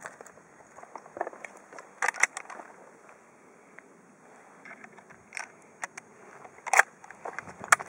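A scattering of short, sharp mechanical clicks and knocks over a quiet background, in clusters about two seconds in, around five and a half seconds, and near the end.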